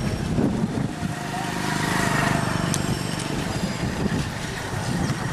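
Steady outdoor traffic noise, vehicles running, with faint voices in the background.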